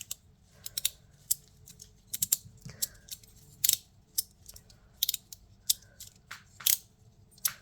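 A tiny fidget slider being slid back and forth by hand, giving about twenty sharp clicks at irregular intervals.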